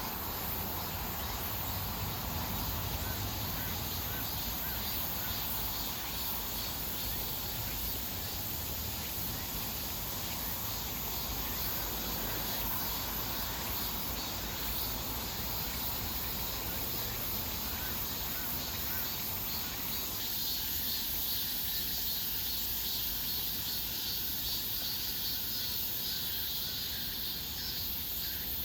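Outdoor insect chorus: a steady high-pitched shrilling over a fast, pulsing chirr, with a few faint bird chirps. The lower background noise drops away about two-thirds of the way through.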